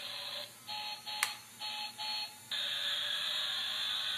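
Battery-powered transforming robot toy car whirring with its small electric motor and gears. About half a second in the whir gives way to four short beeping pulses with a sharp click among them, then it runs steadily again.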